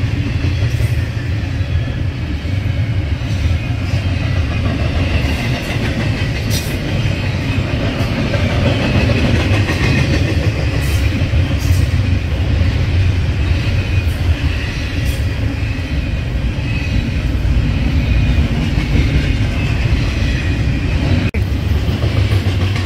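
Double-stack intermodal freight train rolling past at track side: a steady, loud rumble of wheels on rail, with scattered sharp clicks from the cars running over the track.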